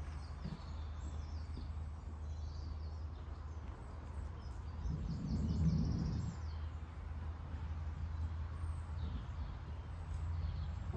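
Birds chirping over a steady low hum, with a brief swell of low rumble about halfway through.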